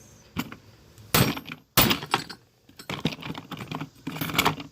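Quick clicks and clatter of small hard objects being handled, with two louder knocks about a second and just under two seconds in, and a close run of rapid clicks near the end.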